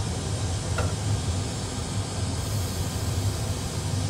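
Steady cockpit noise of an Airbus A320 full-flight simulator during a high-speed emergency descent: an even rushing of air over a low hum, with one faint click about a second in.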